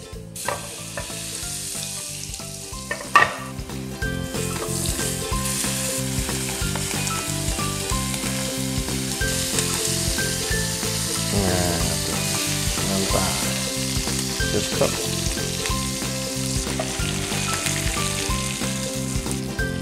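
Tiger shrimp searing in butter and olive-oil marinade in a very hot frying pan: a steady loud sizzle of frying, louder from about four seconds in. There is a sharp knock about three seconds in.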